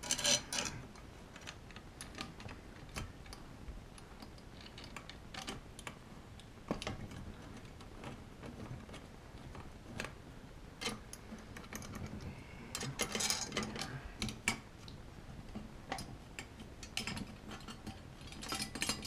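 Scattered small metallic clicks and ticks of long mounting screws being turned by hand with a screwdriver into the backing plate of a Kaba Simplex 1000 push-button lock, with a denser run of clicks about 13 seconds in.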